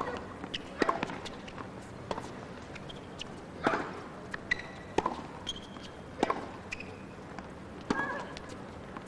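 Tennis ball bounced on a hard court a few times, about a second apart, with sharp short knocks, ahead of a serve, over low arena background noise.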